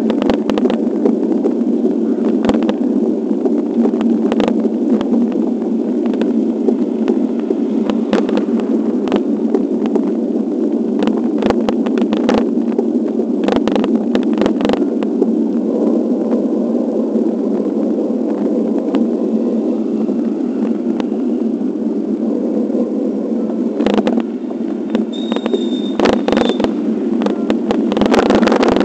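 Wind buffeting the microphone of a camera riding along on a moving bicycle: a steady dense rush, with frequent small knocks and rattles from the ride.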